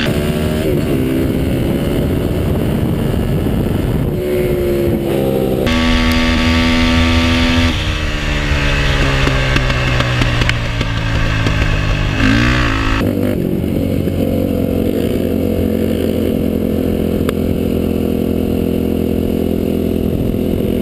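Yamaha YFZ450 quad's single-cylinder four-stroke engine pulling hard in a drag race, with several upshifts that each drop its pitch. About two-thirds of the way in the throttle is shut, and the engine falls to a lower, steady note as the quad slows.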